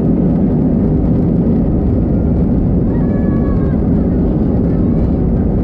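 Steady, loud cabin rumble of an Airbus A320's CFM56 engines and airflow, heard from inside the passenger cabin.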